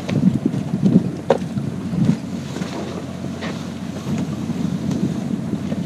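Wind buffeting the microphone in uneven gusts, with a few brief clicks and rustles from the canvas-and-vinyl cockpit enclosure being pushed aside and climbed through.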